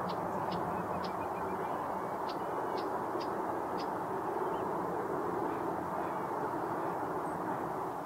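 Wild birds giving about seven short, high calls in the first four seconds over a steady rushing background noise.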